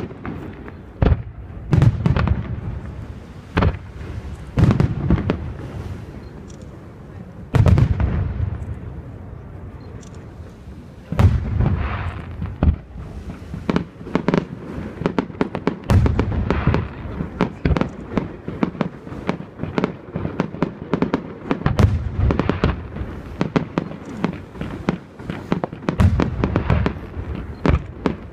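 Fireworks display: a steady run of aerial shell bursts with deep booming reports, the bangs coming singly and in quick clusters, with crackling stars in between.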